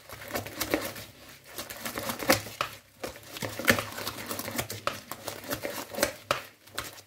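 A coil spring whisk beating a wet mixture of grated potato, carrot and egg in a bowl: quick, irregular scraping and clicking of the wire against the bowl, easing off briefly about three seconds in.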